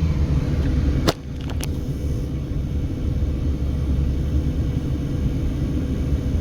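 Steady low rumble of a car driving, its engine and tyres on the road. About a second in there is one sharp click, then two fainter ticks just after it.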